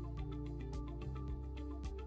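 Background music with a steady beat: sustained low bass notes under quick, light percussion ticks.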